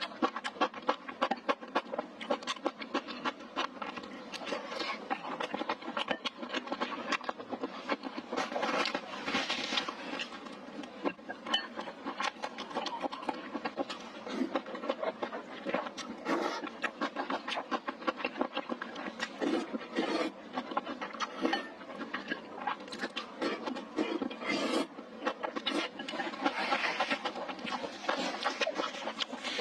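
Close-miked eating: chewing and mouth smacking on spicy hot pot and rice, a steady stream of quick wet clicks.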